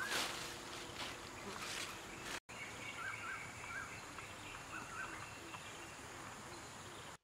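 Leafy branches rustling as they are pulled and tossed onto a pile. After a sudden break about two and a half seconds in, small birds chirp in short repeated calls over a steady high insect drone.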